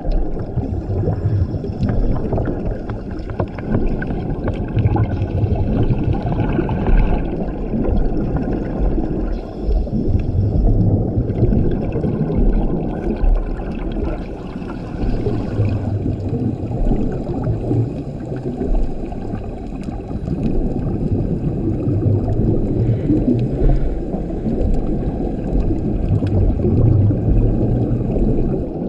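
Scuba diver breathing through a regulator underwater, heard through the camera housing: a continuous bubbly, gurgling water noise. Louder bursts of exhaled bubbles come every few seconds.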